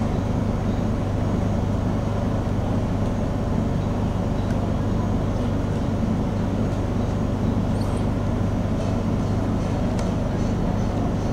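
A motor running steadily: an even, low drone with a constant hum.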